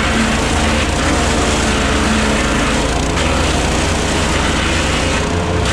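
Petrol-engined wood chipper running steadily at a constant loud level: a low engine drone under a dense mechanical rushing noise.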